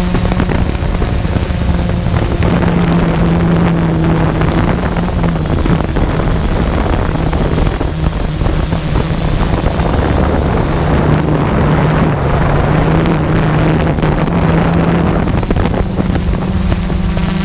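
Camera drone's rotors and motors running in flight, a steady hum with one held low pitch, mixed with wind noise on the microphone.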